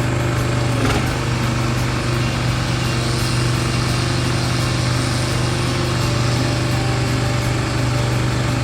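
Small engine running steadily at a constant speed, with one brief knock about a second in.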